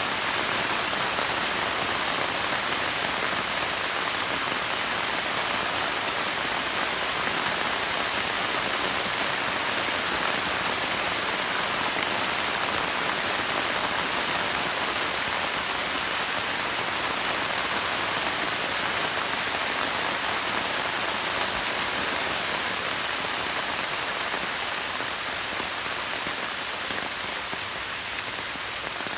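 Heavy rain falling steadily, easing slightly near the end.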